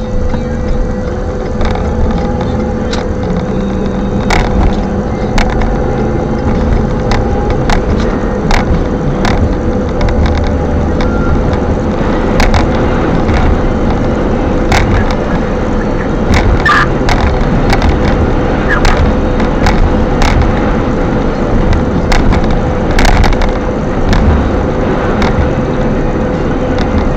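Strong wind buffeting the microphone in a continuous heavy rumble, with frequent sharp clicks and knocks scattered through it and a steady hum underneath.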